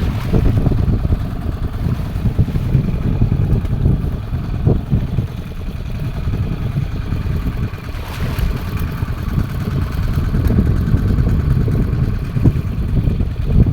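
Fishing boat under way at sea: a steady low rumble of the boat's motor mixed with wind noise.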